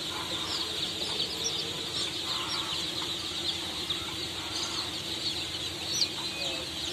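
A crowd of poultry chicks peeping constantly: a dense chorus of short, high, downward-falling cheeps, over a low steady hum.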